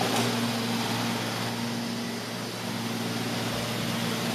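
Neato XV-11 robotic vacuum cleaner running: a steady motor hum from its suction fan and brush, easing slightly about halfway through.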